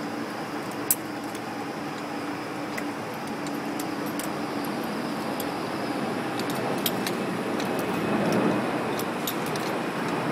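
Sharp metallic clicks and clinks of climbing hardware, carabiners and a rope ascender, being clipped and handled: one loud click about a second in and a run of lighter clicks in the second half. Steady street traffic noise underneath.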